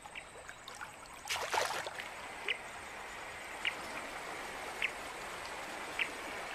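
Steady rush of flowing river water, with a faint short chirp repeating four times, about once every second and a quarter.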